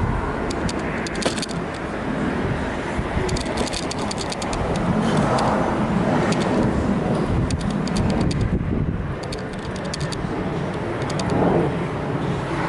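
Metal parts and hand tools clinking and rattling in short clusters of clicks over a steady low rumble.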